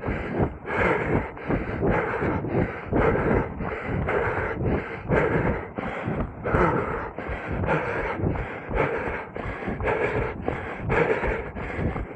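A runner's hard, rhythmic breathing, about two breaths a second.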